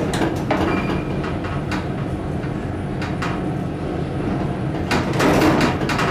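A 1975 KONE inclined traction elevator car travelling along its inclined track: a steady low rumble with irregular clacks and rattles.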